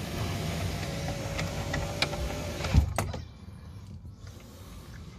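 Renault Espace IV power window motor running, driving the glass along its cable-type regulator with a steady whine and light clicks. It stops with a sharper click about three seconds in.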